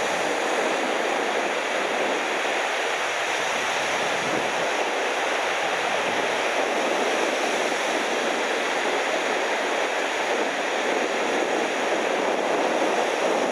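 Ocean surf breaking, a steady wash of noise.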